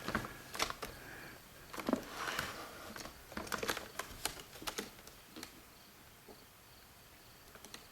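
Handling noise: light clicks, knocks and brief rustles as a 1986 Magnavox VHS camcorder's plastic body is turned over in the hands. The sounds die away after about five seconds.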